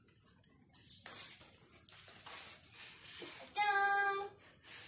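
Cardboard parcel being pulled open, its flaps rustling and scraping for a couple of seconds. Near the end a girl's voice briefly holds one steady note, the loudest sound.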